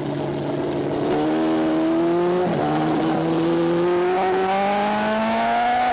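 Superbike racing motorcycle engine heard from on board under hard acceleration, with wind rush. Its note climbs slowly in pitch, dips once about two and a half seconds in, then climbs again.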